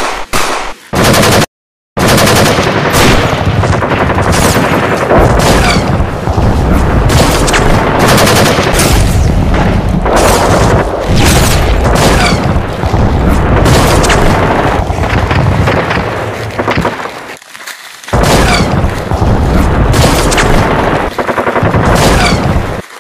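Rapid gunfire in long, nearly continuous strings of shots, as from automatic rifles in a firefight. It breaks off into dead silence for a moment just after the start, and there is a short lull near the end.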